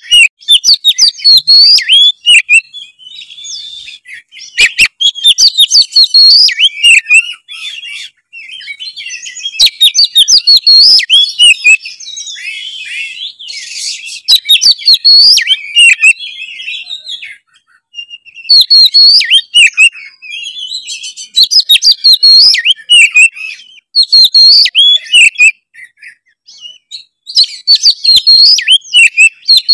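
Oriental magpie-robin (kacer) singing in bouts of rapid, varied whistled phrases and chatters, with short pauses between bouts. It is a vigorous 'gacor' song used as a lure to set other magpie-robins singing, recorded so loud that it clips in places.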